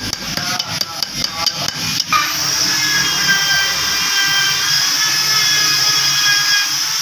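Rapid metallic clicking and tapping for about two seconds. Then an electric power tool motor starts with a short rising whine and runs steadily.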